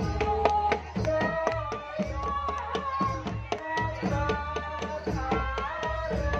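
Live Javanese jaranan music: kendang hand drums struck in quick, busy strokes under a melody of held notes that slide between pitches, with heavy amplified bass.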